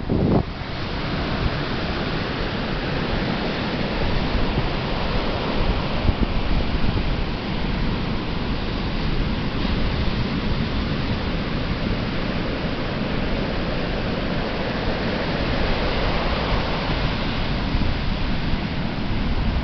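Atlantic Ocean surf washing onto the beach: a steady rushing wash of breaking waves that swells gently and eases without pause.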